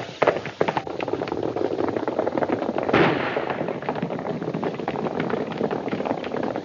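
Gunshots ringing out over the hoofbeats of galloping horses, with the loudest shot about three seconds in.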